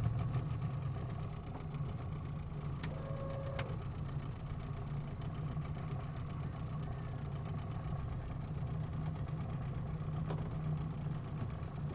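Small outboard motor on an aluminium dinghy running steadily at low throttle, with a couple of faint knocks about three seconds in and near the end.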